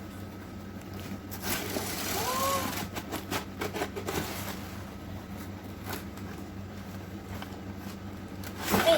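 Toy packaging being handled: a couple of seconds of rustling, then a scatter of small clicks and taps as pieces are moved, with a brief hum of a child's voice about two seconds in.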